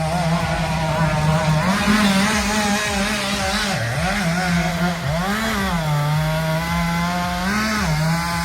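Chainsaw engine running at high speed. Its pitch dips and recovers a few times, around the middle and near the end.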